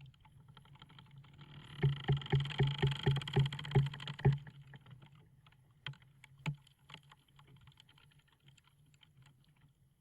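Wooden ship's timbers creaking. A slow creak of about ten rapid clicks over a low groan runs from about two to four seconds in, followed by scattered small ticks and cracks as the wood contracts.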